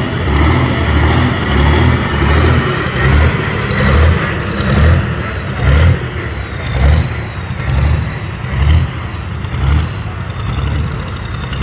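Pulling tractor's engine running, a heavy low rumble that pulses about twice a second.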